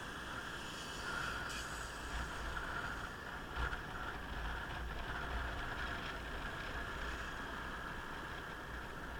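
Motorcycle riding heard from a camera on the bike or rider: a steady mix of wind and road noise with a low, uneven rumble, and one brief knock about three and a half seconds in.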